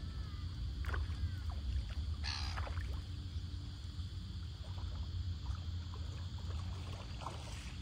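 Boat motor running steadily across the water, a low rumble, with a short hiss about two seconds in.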